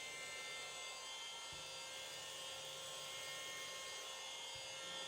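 GOOFIT cordless handheld vacuum cleaner running at full speed, its small motor giving a steady high whine that holds one pitch.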